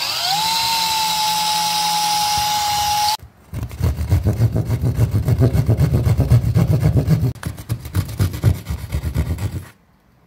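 A cordless drill spins up with a rising whine and runs steadily for about three seconds, boring a hole through drywall. After a short pause, a hand jab saw cuts through the drywall in quick, rhythmic back-and-forth strokes for about six seconds, opening a rectangular hole in the wall.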